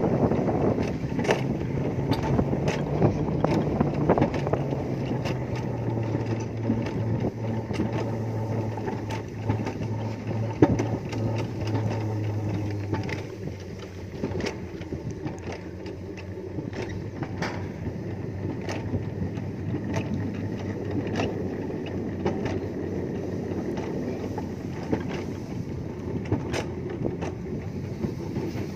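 Alpine coaster sled running down its steel tube rails: a steady rumble of the wheels on the track with scattered clicks. A low hum steps down in pitch and stops about halfway through, and the rumble gets a little quieter after that.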